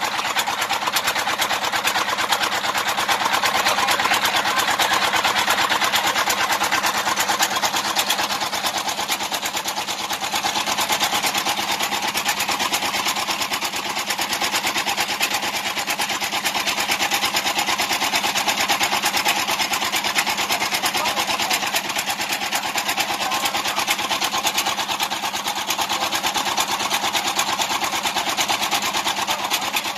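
Small engine on a salvage barge running steadily, with a fast, even rattle and no change in speed.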